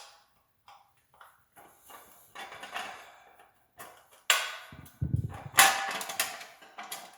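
A Phillips screwdriver turning out the screws that hold a Schwinn Airdyne's chain guard, with scattered clicks, scrapes and creaks of the screws and guard being worked loose. Louder knocks and clattering of the guard come about four seconds in and again between five and six seconds.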